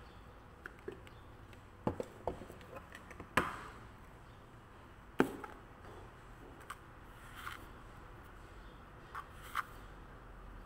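A handful of scattered sharp clicks and knocks from kitchen things being handled, with two louder knocks about three and a half and five seconds in. There is no sizzling.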